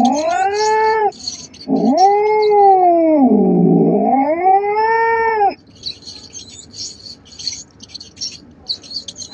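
Domestic cat yowling. First a short wail, then a long drawn-out one that sags in pitch in the middle and rises again. After about five and a half seconds only a faint, rapid high ticking is left.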